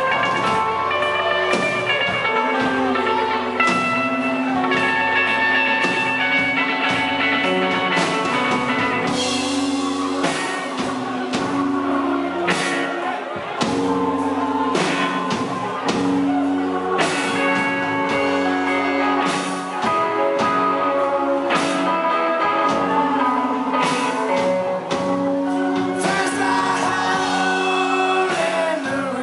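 Rock band playing live: electric guitars, electric bass and drum kit, with a man singing lead at the microphone.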